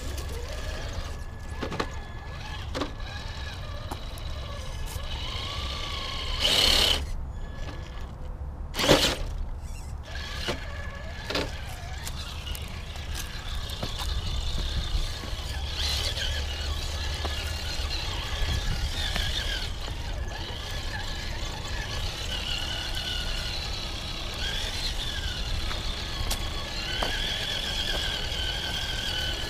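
Traxxas TRX-4 Sport RC crawler's electric motor and geartrain whining, the pitch rising and falling with the throttle. Two louder knocks, about seven and nine seconds in, are the truck bumping over terrain.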